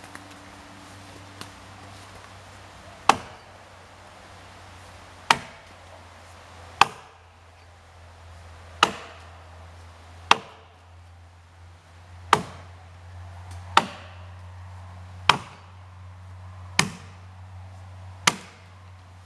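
Jersey-pattern axe with a 3.5-pound head chopping into a felled white ash: ten sharp chops, about one and a half to two seconds apart, starting about three seconds in. Before the first chop there are light footsteps in dry leaves.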